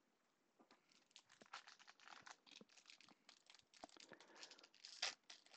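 Foil wrapper of a baseball card pack crinkling and tearing as gloved hands peel it open: faint, rapid irregular crackles that grow denser, with a louder rip near the end.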